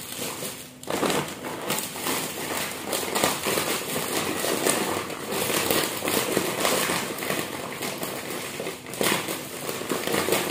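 Clear plastic bags and snack packets crinkling and rustling as they are handled and filled, starting about a second in.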